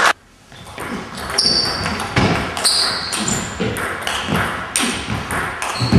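Table tennis rally: the celluloid ball clicking sharply off the rackets and the table, about two strikes a second, starting about half a second in, in a sports hall.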